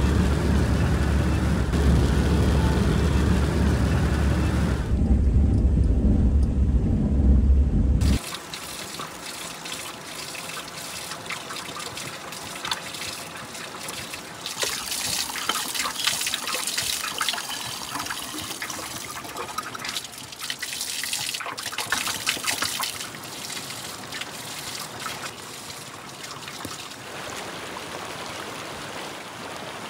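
A loud low rumble for about the first eight seconds, cut off suddenly; then water trickling and splashing from the metal spout of a stone spring fountain.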